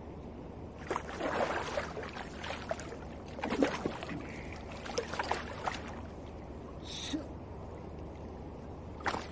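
Shallow water splashing and sloshing in irregular bursts as a hooked Japanese sea bass thrashes at the surface and is lifted out with a lip grip. The splashing comes in clusters for the first several seconds, with one more short splash near the end.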